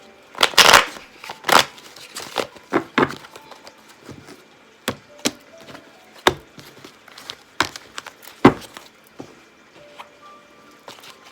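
Tarot cards being shuffled and handled: a series of irregular sharp flicks, riffles and taps, loudest in the first second and again about eight and a half seconds in.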